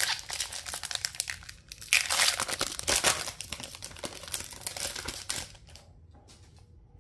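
Wrapper of an Upper Deck hockey card pack being torn open and crinkled. The crinkling is dense and stops about five and a half seconds in.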